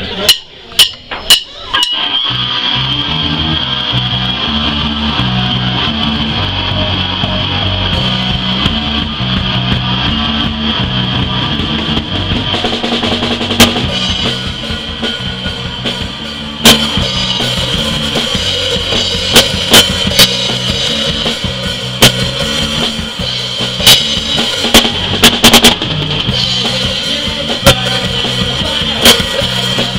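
Live rock band playing: drum kit and electric guitars, loud and close to the drums. A few sharp clicks come first, and the band starts about two seconds in. The loudest drum hits overload the recording and give a weird noise, because the camera sat too close to the drums.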